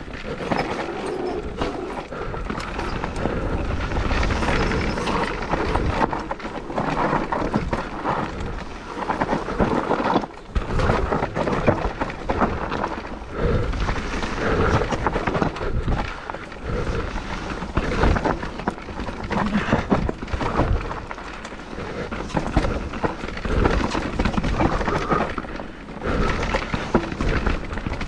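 Mountain bike riding fast over a rough trail: tyres running on dirt and stones, and the bike clattering with many quick knocks and rattles over the bumps.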